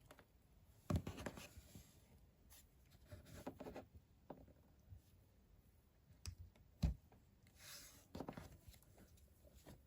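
Faint handling of toy packaging during an unboxing: two sharp knocks, about a second in and near seven seconds, between bouts of rubbing and rustling.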